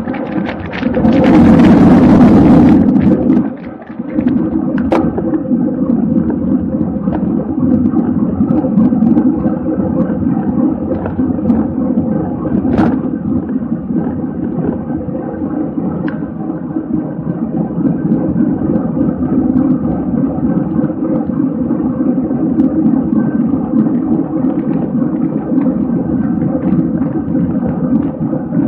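Steady wind rush and tyre-on-road rumble from a bicycle racing at speed, heard on the bike-mounted camera's microphone. A louder blast of wind noise comes about one to three seconds in, and there are a couple of brief clicks later on.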